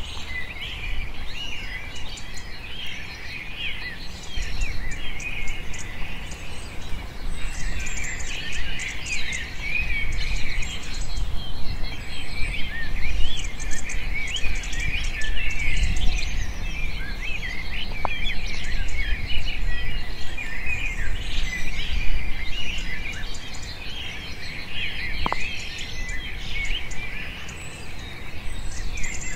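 A chorus of many small birds chirping and chattering continuously, over a steady low rumble.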